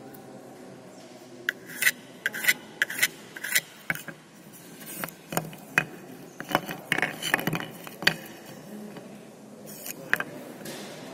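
Small plywood pieces handled on a wooden workbench: a run of sharp wooden clacks as they are set down and knocked together, with scraping as they slide across the bench. A couple more clacks come near the end.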